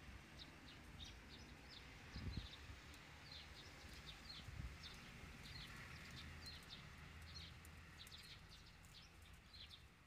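Faint small birds chirping over and over in short high calls, several a second, with a soft low thump about two seconds in.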